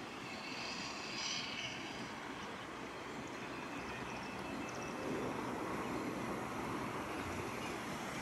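Steady city street traffic noise from passing vehicles, with a brief higher-pitched hiss about a second in.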